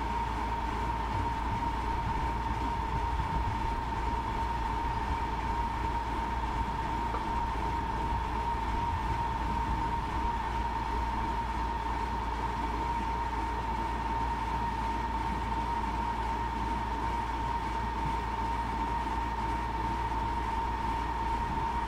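Samart Kaset Yont Giant sugarcane harvester running steadily while its elevator conveyor loads chopped cane into a truck: an even mechanical drone with a constant high whine over it.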